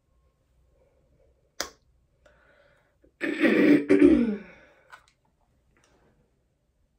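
A sharp click about a second and a half in, then a woman clearing her throat, loud and rough, for just over a second.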